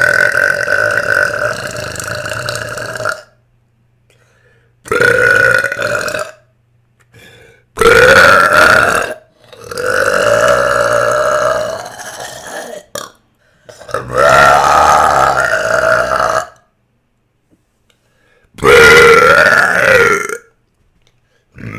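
A woman belching loudly: six long, drawn-out burps one after another, each lasting about one to three seconds, with short pauses between them.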